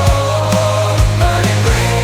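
AI-generated hair metal track in an instrumental passage: sustained guitar tones over a steady bass line, with a kick drum thumping several times a second.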